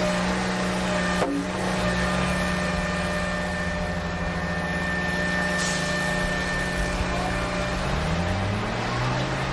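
Steady engine-like hum at an even pitch, with a sharp click about a second in and the pitch rising near the end.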